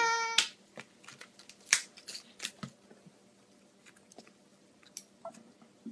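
A toddler's whining cry cuts off suddenly in the first half second. It is followed by faint, scattered clicks and smacks of the toddler eating: chewing, lip smacks and small utensil taps, the loudest about two seconds in.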